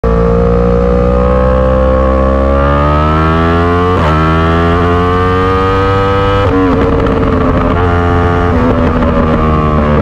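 Yamaha R1's crossplane inline-four engine through an Akrapovic Evolution exhaust, rising in pitch under throttle with a brief break about four seconds in. It climbs again, then drops about six and a half seconds in and runs lower and rougher.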